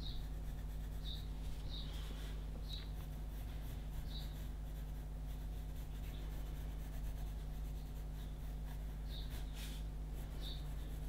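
Pencil graphite scratching on paper in short, light shading strokes, coming irregularly about once every half second to a second, over a steady low hum.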